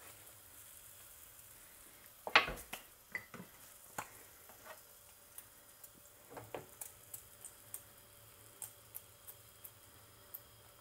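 Flatbread dough frying in hot oil in a frying pan: a faint steady sizzle with scattered crackles and pops. A sharp knock comes about two seconds in, followed by a few lighter knocks and a second small cluster about halfway through.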